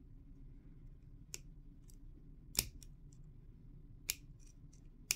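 Needle-nose pliers clicking against a clock's lantern pinion as new trundles are pressed into it: a handful of separate sharp metal clicks, the loudest about halfway through, over a faint low hum.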